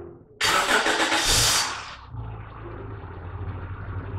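Honda Accord's engine starting: a loud burst of cranking and catching about half a second in, lasting about a second and a half, then the engine settles into a steady low idle.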